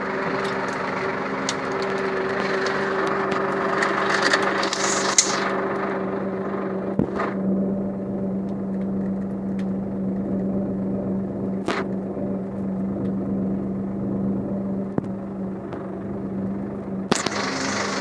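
Small tractor engine running steadily while dragging a rope-hitched bundle of felled Leylandii branches. About seven seconds in the higher-pitched noise drops away, leaving a steady engine hum, with a couple of sharp clicks.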